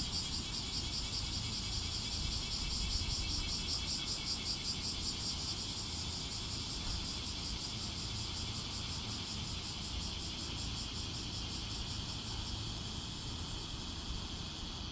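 Cicadas singing: a steady, rapidly pulsing high buzz whose upper part fades out near the end while a lower buzz carries on, over a low rumble.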